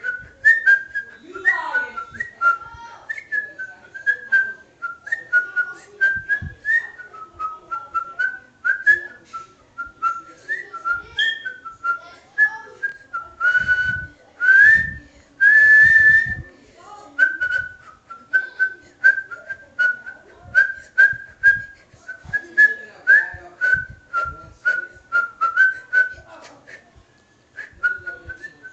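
A person whistling a tune by mouth: a long run of short, hopping notes in a fairly high register. About halfway through come a few louder, breathier notes.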